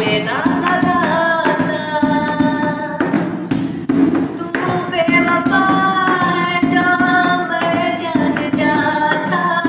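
A man singing a song in long, held, wavering notes over a steady accompaniment with short percussive taps.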